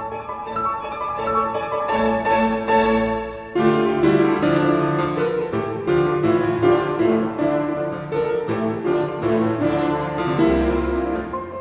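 Instrumental background music with a melody of quick pitched notes; it becomes fuller and louder about three and a half seconds in.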